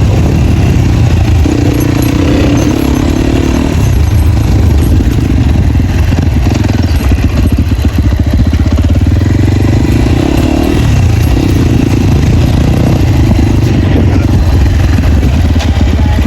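Loud off-road motorcycle engine running with no dB killer in the exhaust while riding. The engine note shifts up and down a few times as the throttle changes.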